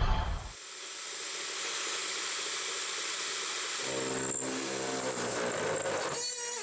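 Converted 9x20 benchtop CNC metal lathe running: a steady hiss with a high thin whine, joined about four seconds in by a lower hum of several tones. Near the end the pitch falls as the spindle winds down.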